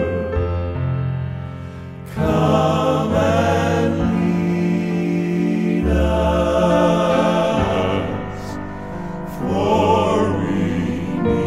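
Southern gospel male quartet singing in close harmony, holding long chords over instrumental accompaniment.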